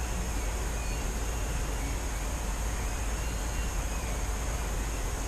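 Steady background noise: a low hum under an even hiss, with a faint thin high whine.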